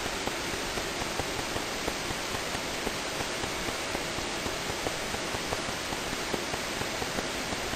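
Steady hiss of background noise, with faint small ticks scattered through it.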